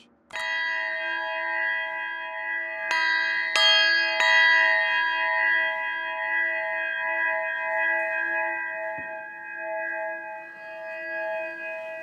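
Metal singing bowls struck and left ringing: one strike, then three more in quick succession about three to four seconds in. Their layered steady tones ring on with a slow wavering pulse and fade a little near the end.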